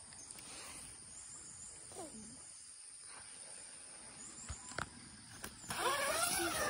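Quiet morning campsite with a faint steady high-pitched insect drone and a couple of light taps. Near the end a loud wavering call, rising and falling in pitch, breaks in.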